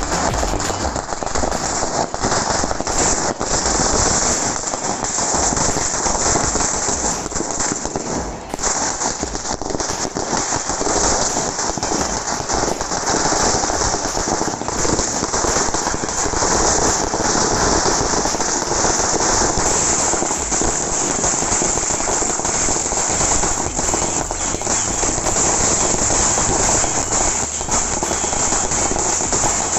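A 2000-wala firecracker string bursting, with small bangs going off in rapid, unbroken succession at a steady level.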